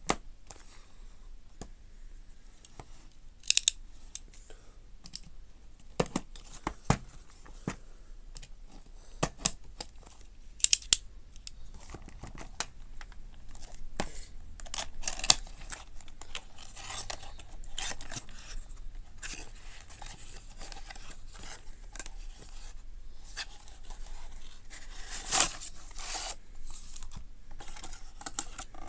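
A cardboard toy-train box being handled and opened by hand: a few sharp taps and knocks against the card, then rustling, scraping and tearing as the flap and its seal are pulled open, with the loudest scrape near the end.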